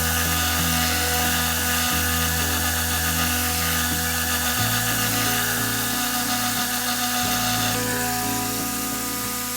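Background music with a bass line that changes note about every two and a half seconds, over a steady hiss of compressed air from a Tornador air-powered cleaning gun spraying a degreaser solution.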